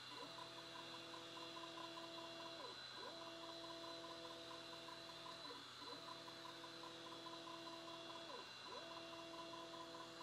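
Creality Falcon 2 laser engraver's motors whining faintly as the head scans along while engraving. A steady, several-note hum drops and comes back about every three seconds, over a fast ticking tone and a high steady whine.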